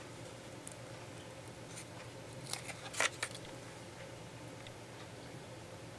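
Cardstock handled by hand: a few short paper rustles and light taps, the loudest a little after halfway, over a faint steady hum.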